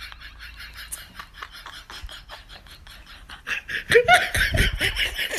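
A person laughing in quick breathy gasps that turn into loud, full laughter about three and a half seconds in.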